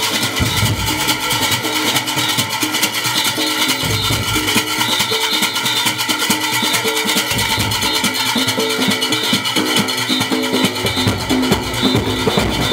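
Live Junkanoo band music: brass horns, sousaphones among them, playing over the dense, driving rhythm of large goatskin barrel drums.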